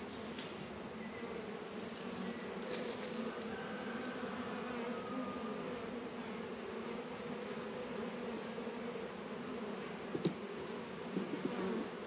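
Honeybees buzzing around an opened hive, a steady hum. A few light clicks come about three seconds in, and a sharp click about ten seconds in.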